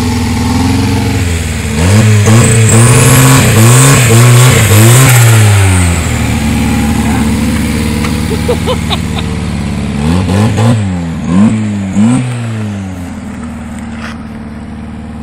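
Turbocharged, carburetted Ford Fiesta engine revved in quick blips, about four in a row, then idling, then another four. A high turbo whistle rises over the first burst of revs and falls away after it.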